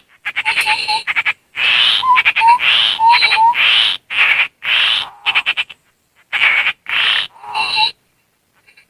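Tepus landak babbler calls mixed with human mouth whistling, played as a bird lure: repeated harsh, rasping chatter bursts with short rising whistled notes between them, stopping about 8 seconds in.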